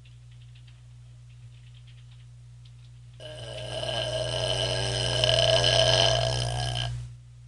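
A woman's single long, loud belch, lasting about four seconds and starting about three seconds in, its pitch wavering as it goes.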